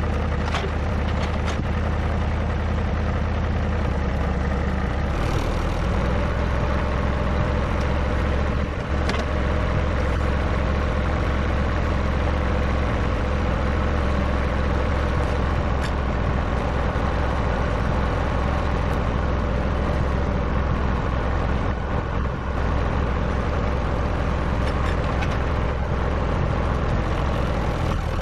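Tractor engine running steadily, a low, even drone with a few faint knocks.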